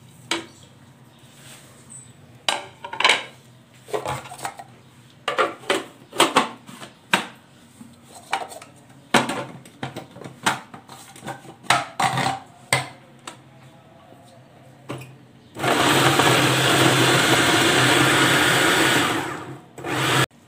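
Anex electric food chopper running for about four seconds near the end, chopping onion, green chillies, coriander and mint into a fine paste. Before it starts there is a string of short knocks and rustles as the herbs go into the plastic bowl.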